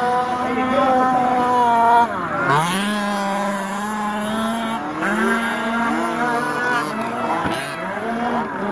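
Several quarter-scale radio-controlled speedway cars racing together, their small two-stroke petrol engines buzzing at high revs in overlapping notes. The engine note drops sharply and climbs back about two seconds in and again near the end, as the throttle is backed off and reopened.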